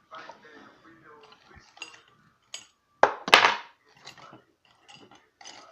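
Small metal tools clinking and rattling as they are handled, with the loudest clatter about three seconds in.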